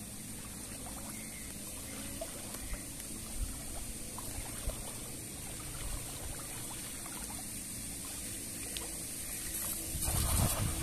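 Shallow river water trickling steadily, with small clicks and rustles from a nylon cast net and its chain weights being handled, and a louder rustle about ten seconds in.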